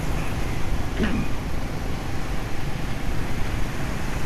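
Steady low rumble of a motorbike riding in city traffic: engine drone mixed with wind and road noise. A short falling voice-like sound comes about a second in.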